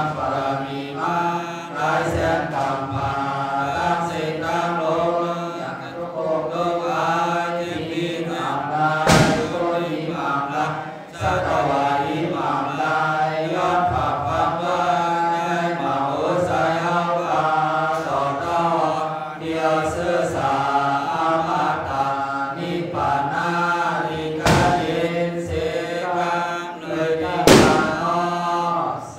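A Buddhist monk chanting a sermon into a microphone in a continuous sing-song voice, with a few sharp clicks along the way.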